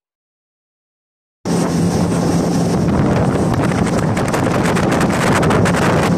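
Silent for about a second and a half, then a motorboat under way cuts in suddenly: a steady low engine hum under heavy wind buffeting on the microphone.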